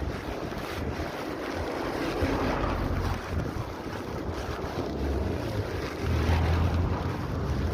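Wind buffeting the microphone, a steady low rumbling rush.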